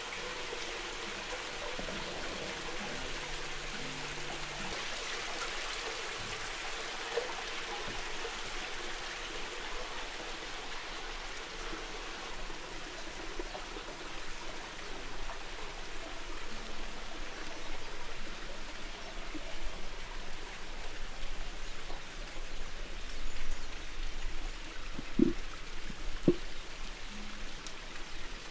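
Steady rushing and trickling of running water, a continuous even wash of sound.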